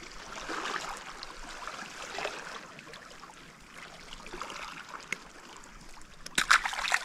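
Shallow seawater washing and trickling over rocks at the shore. Near the end comes a short, louder burst of sharp clicks and splashes.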